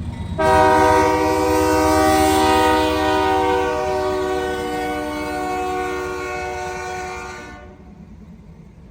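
BNSF locomotive air horn sounding one very loud and long steady blast of several tones, starting about half a second in, easing a little and cutting off sharply near the end. A low train rumble runs underneath and continues after the horn stops.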